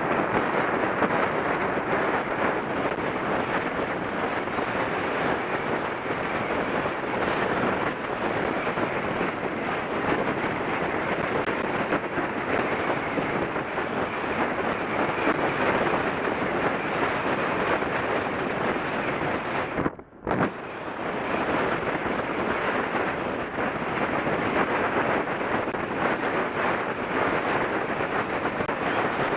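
Steady, loud wind buffeting on the microphone of a camera carried on a mountain bike riding along a gravel road, mixed with the rumble of the ride. The noise cuts out briefly about twenty seconds in.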